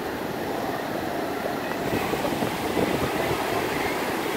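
Ocean surf breaking and washing up the sand in a steady rush, growing a little louder about halfway through.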